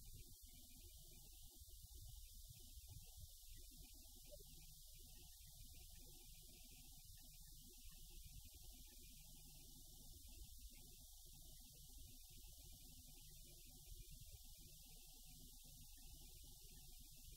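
Near silence: a faint, steady low hum of outdoor background.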